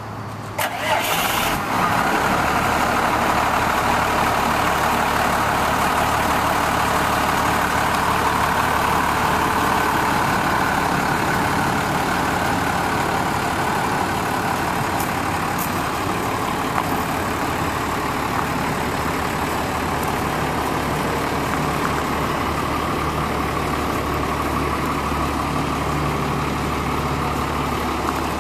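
A Cummins 5.9L diesel engine in a Ford F800 truck cranks and starts about a second in, then idles steadily.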